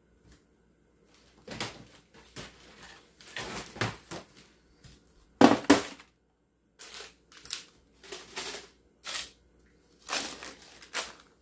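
A plastic basket set into a kitchen drawer and filled with plastic-wrapped packs and handfuls of drinking straws: irregular clatters, rustles and crinkles, the loudest about five and a half seconds in.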